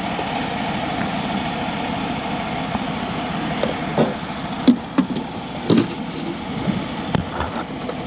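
A vehicle engine idling steadily, with a few short knocks in the second half.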